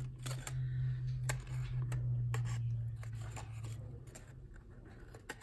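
Scissors snipping through die-cut cardstock in a string of short, irregular snips, cutting the piece free from the tabs still attaching it. A low steady hum runs underneath and fades away about four seconds in.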